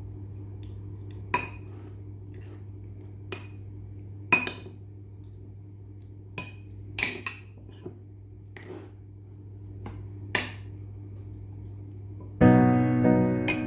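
A utensil clinking against a bowl about eight times, short ringing clinks a second or two apart, as chicken is mixed into its marinade; a steady low hum runs underneath. Soft piano music comes in near the end.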